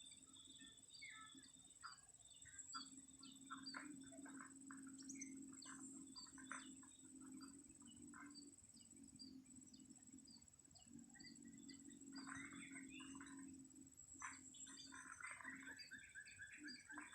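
Small birds chirping and calling, many short notes overlapping with a denser burst of calls near the end. A steady high whine and a low hum run faintly underneath.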